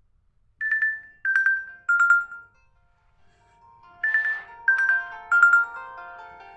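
Nokia 2.3 ringtone: three falling bell-like notes, then from about four seconds in the same three notes again over sustained chords.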